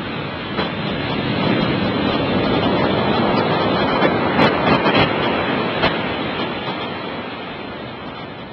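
Surf from a large typhoon swell: a wave breaking and rushing in, swelling to a peak in the middle and slowly fading, with a few sharp crackles at its loudest.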